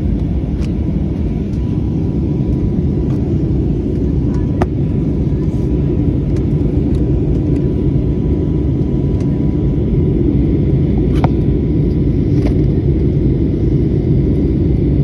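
Steady low rumble of an airliner cabin in flight, the engines and airflow heard from a window seat. A few light clicks sound over it.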